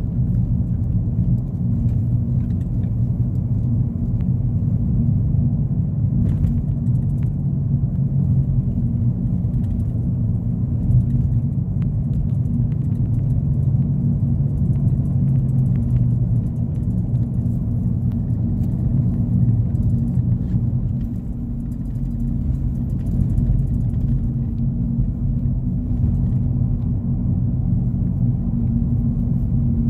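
Car driving at steady speed, heard from inside the cabin: a continuous low rumble of engine and road noise.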